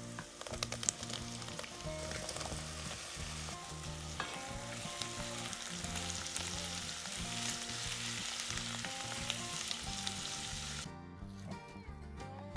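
Vegetables frying in oil in a pot, a dense sizzle with scattered clicks of stirring, which stops abruptly near the end. Background music plays throughout.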